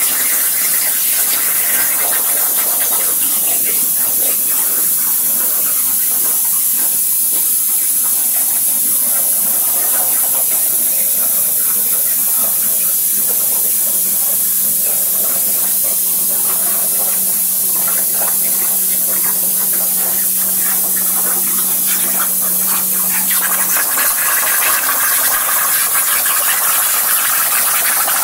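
CNC plasma torch cutting 3/16-inch steel plate: a loud, steady hiss of the arc and its air jet. A low steady hum runs under it for a while and stops about four seconds before the end.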